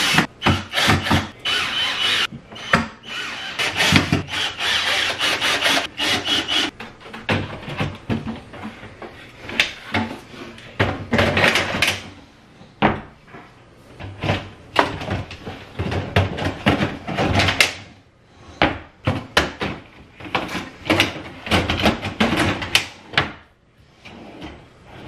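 Drawer runners and drawer fronts being fitted into an IKEA kitchen cabinet: many separate knocks and clicks of wooden panels and metal rails, with scraping and rubbing between them.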